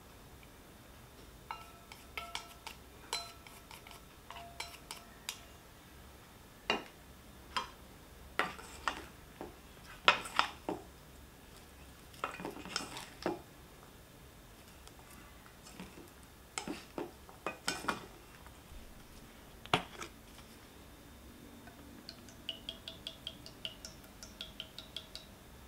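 Chopsticks and a spatula clinking and scraping against a stainless steel mixing bowl as vegetables are tossed in batter. The knocks are irregular and sharp, some leaving a brief metallic ring, and a quick run of lighter ticks comes near the end.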